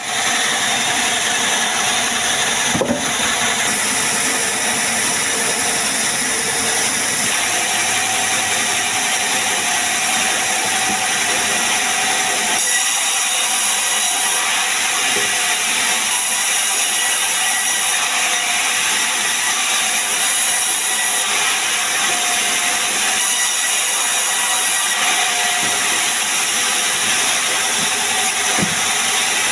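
Sawmill band saw running and cutting lengthwise through a sengon (Falcataria) log: a steady, loud, high-pitched machine noise of blade and motor whose tone shifts several times as the cut goes on.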